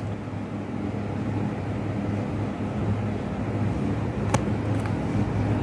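Steady low background hum in a small room, with a single sharp click about four seconds in.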